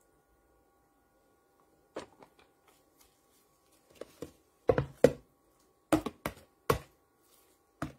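Gloved hands at work on a plastic cutting board while rolling spring rolls: a string of about a dozen sharp taps and knocks starting about two seconds in, the loudest a few seconds later.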